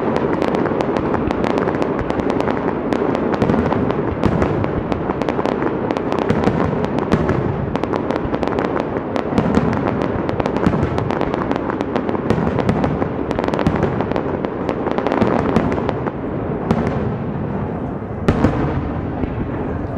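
Fireworks display: a dense, continuous crackle of many small reports over a rumbling mass of aerial shell bursts, with a sharper bang about eighteen seconds in.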